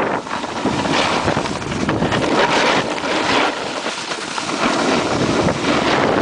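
Wind rushing over the camera microphone while skiing downhill, mixed with the hiss and scrape of skis sliding over packed snow, swelling in short surges about once a second.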